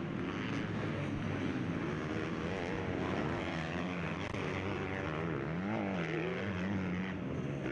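Engines of 250-class motocross bikes racing on the track, revving up and down in pitch as riders work the throttle, with more than one bike heard at once.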